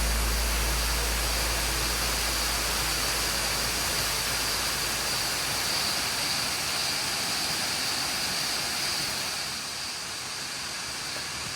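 Steady, loud chorus of cicadas, a constant high-pitched drone over an even hiss. A low rumble fades out over the first few seconds, and the sound eases slightly near the end.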